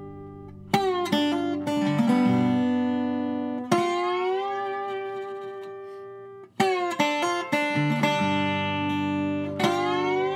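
Background music: a plucked guitar with notes that slide up in pitch, phrases starting about every three seconds and ringing out between them.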